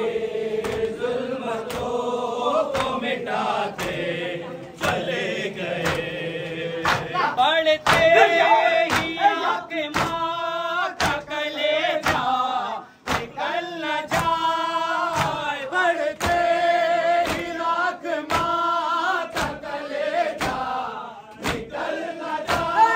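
Mourners chanting a nauha lament together, with matam chest-beating: a sharp, rhythmic slap slightly more often than once a second keeps time under the chanting.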